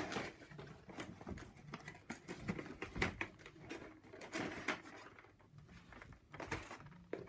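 Cardboard layer of a Warley Stock Box being lifted out, with scattered light taps, clicks and scraping of card against card.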